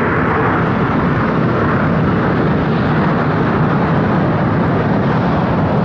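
Jet noise from a Boeing 747's four turbofan engines as the airliner arrives: a steady, loud rush whose higher hiss fades over the first second or two, leaving a deeper rumble.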